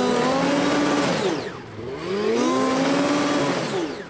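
Racing snowmobile engines running at high revs. The pitch climbs, then drops away sharply twice, about a second and a half in and again near the end.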